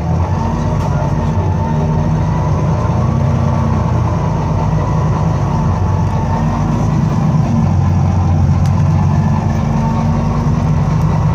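Inside a Volvo B9TL double-decker bus under way: its Volvo D9B diesel engine gives a steady low drone, mixed with road noise.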